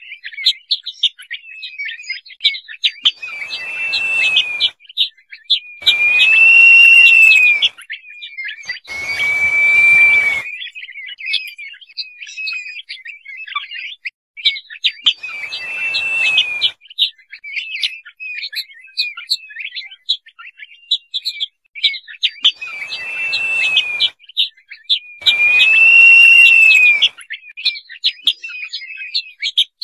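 Crested partridge (roul-roul) whistling: six drawn-out whistles, each one to two seconds long, rising then falling in pitch, spaced a few seconds apart. A steady patter of short, high chirps runs beneath them.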